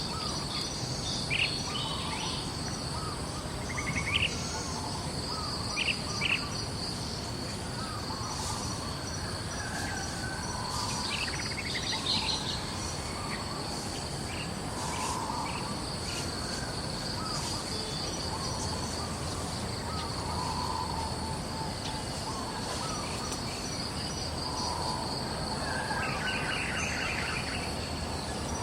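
Outdoor nature ambience: a steady, high, pulsing insect trill with scattered short bird chirps over it.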